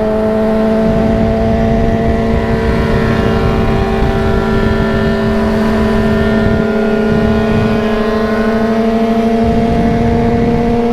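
Yamaha XJ6's inline-four engine running at steady cruising revs, its pitch creeping slowly upward, with wind noise rumbling on the microphone.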